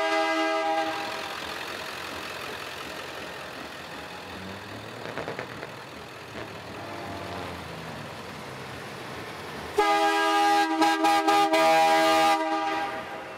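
Semi-truck air horns: a chord of several tones fades out about a second in, then passing trucks' engines run for several seconds. About ten seconds in, a passing semi sounds its horn for over two seconds, broken briefly a few times.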